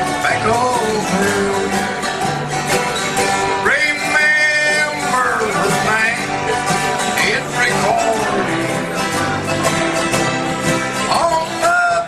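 A man's voice singing a country-bluegrass song through a PA microphone and speaker, with acoustic guitars strumming the accompaniment.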